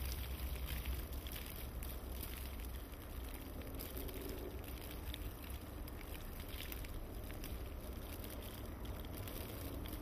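Blizzard wind buffeting the microphone: a steady low rumble with a hiss of blowing snow above it.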